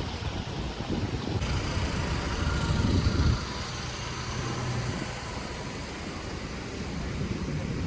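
Strong wind buffeting the microphone in low, rumbling gusts that ease a little after about three seconds into a steadier rush.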